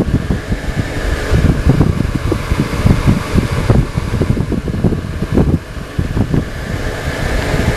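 Wind buffeting and handling noise on a handheld camera's microphone: a loud, uneven rumble full of crackles.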